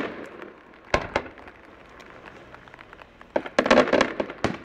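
Fireworks going off: two sharp bangs about a second in, then a rapid cluster of crackling bangs from about three and a half seconds until near the end.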